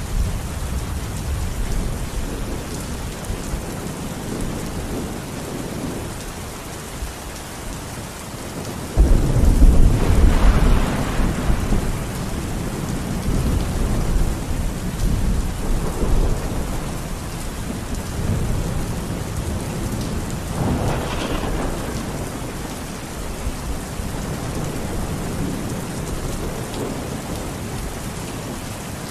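Steady rain falling, with thunder. A sudden loud rumble about a third of the way in rolls on for several seconds, and a weaker rumble comes about two-thirds of the way through.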